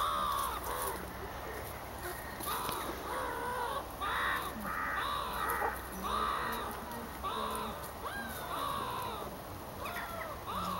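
A long series of harsh animal calls, about one a second, each short and rising then falling in pitch.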